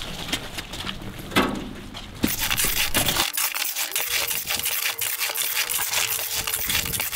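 Gravel being moved off a trailer bed into a steel wheelbarrow: stones rattling and scraping. It starts as a few scattered clicks and becomes a dense, continuous crunching rattle from about two seconds in.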